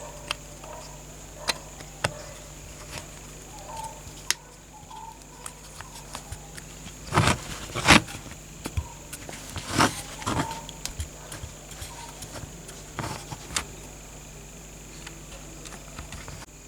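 Workbench handling sounds: scattered light clicks and knocks of small objects being picked up and set down, with a few louder knocks about seven to eight seconds in and again near ten seconds, over a steady faint hum.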